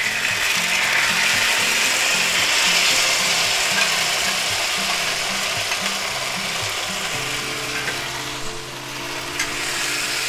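Marinated chicken sizzling loudly in hot oil in a cast iron skillet, just after it has gone into the pan; the sizzle eases slightly after about seven seconds.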